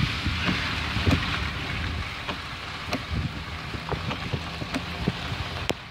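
Wind and road noise of a moving car through its lowered side window: a steady rushing hiss over a low rumble, with scattered small knocks and one sharper click near the end.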